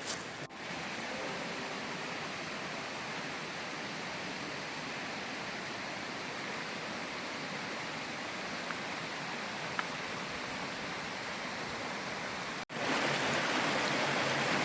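Steady rushing of flowing water from a mountain stream. The sound breaks off for an instant near the end and comes back louder.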